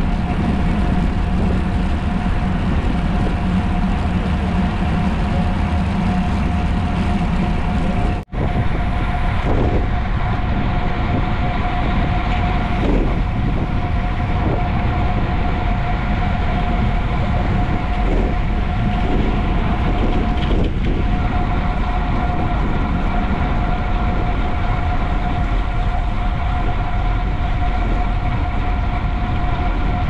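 Steady wind and rolling noise on a camera riding along on a bicycle, with a constant hum running under it. The sound cuts out for an instant about eight seconds in.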